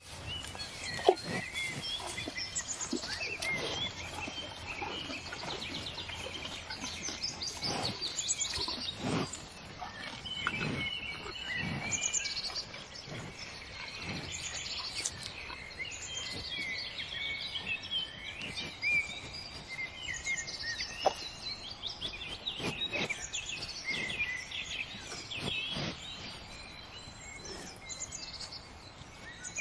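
Cattle grazing, tearing off grass and chewing it in irregular crunches every second or two, with birds chirping and singing throughout.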